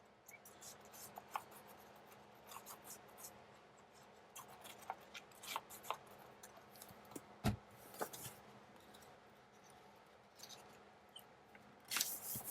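Faint paper-crafting handling sounds: small clicks, taps and rustles of a paper letter being folded and glued down. There is a sharper tap about halfway through, and the rustling gets louder near the end.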